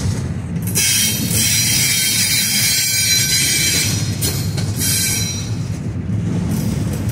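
Freight train of double-stack intermodal well cars rolling past, its steel wheels rumbling on the rails. A high-pitched wheel squeal fades out and returns several times.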